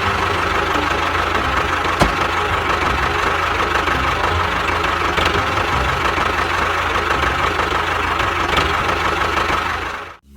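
Steady running noise of a small machine's engine or motor, even and unbroken, with a single click about two seconds in; it cuts off abruptly near the end.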